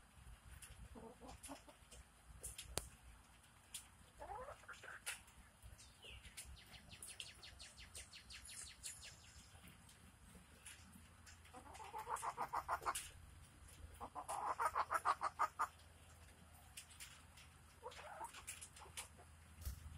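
Hens clucking while they scratch and peck in loose dirt. There are a few short rising calls and two quick runs of rapid clucks, the louder ones about twelve and fifteen seconds in, with a scatter of faint ticks from beaks and claws in the soil.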